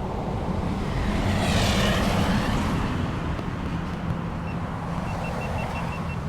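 A steady, low motor drone under a wash of noise, swelling briefly about two seconds in.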